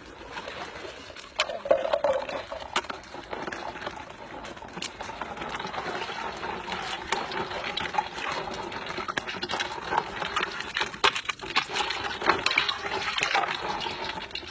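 Water running into a container and filling it, a steady splashing rush that starts suddenly about a second and a half in.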